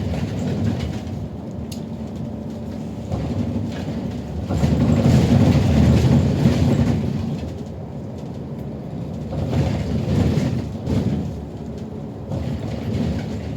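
City bus on the move, heard from inside the cabin: a steady low rumble of engine and road that swells louder for a couple of seconds near the middle, with occasional clicks and rattles.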